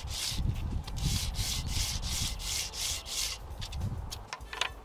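A purpleheart wooden clock hand rubbed back and forth on 180-grit sandpaper, a steady rasping rhythm of about two or three strokes a second, to take off the high spots. The strokes stop about three and a half seconds in, followed by a few light clicks.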